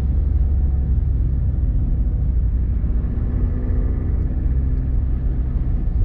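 Cabin noise of a van driving on a wet city street: a steady low rumble of engine and tyres on wet asphalt, with the engine's note coming up a little about halfway through.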